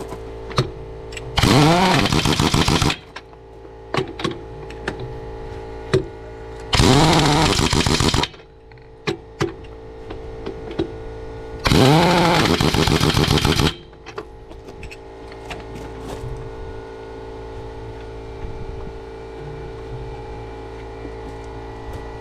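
Impact wrench run in three bursts of about two seconds each, spinning up and hammering lug nuts onto a truck wheel, with metal clinks between bursts and a steady hum underneath.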